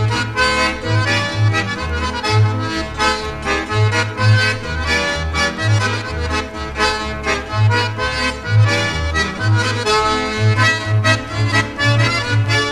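Accordion polka: the accordion carries a lively tune over a bass line that bounces back and forth between two low notes, oom-pah style.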